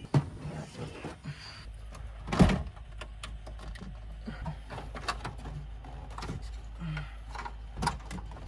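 Scattered clicks, rattles and knocks of plastic dash parts and wiring being handled during a car stereo install, with one louder thump about two and a half seconds in. A steady low hum runs underneath from about two seconds in.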